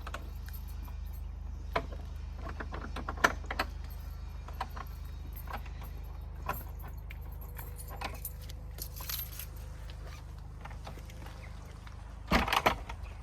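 A bunch of keys jangling and clicking in scattered short bursts over a steady low rumble, with a louder clatter near the end.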